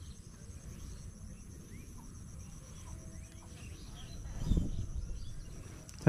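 Insects trilling steadily at a high pitch, with faint, scattered short bird chirps. A soft low rustle swells briefly about four and a half seconds in.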